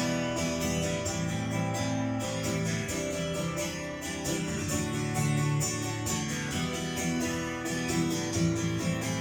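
Music led by a strummed guitar with a steady rhythm, played back through a Sony STR-DH820 AV receiver.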